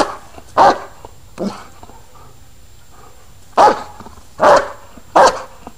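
A German Shepherd barking: three barks in quick succession, a pause of about two seconds, then three more.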